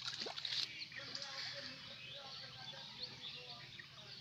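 A hooked fish splashing at the water's surface near the start, followed by birds chirping.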